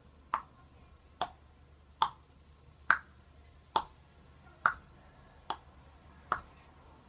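A sharp click repeating at a steady pace, a little faster than once a second, about eight times.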